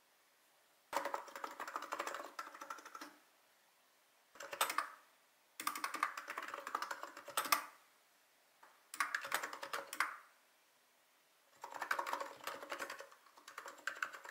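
Typing on a computer keyboard: five runs of rapid key clicks with short pauses between them.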